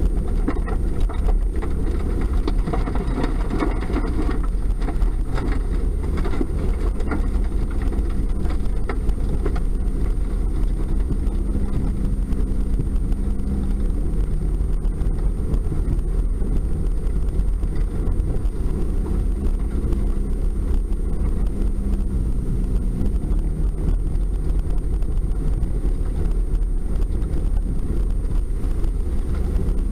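Toyota Tacoma pickup's engine running as the truck drives across a muddy field, heard from inside the cab as a steady low rumble. Its note shifts in pitch a couple of times, with scattered knocks and rattles in the first several seconds.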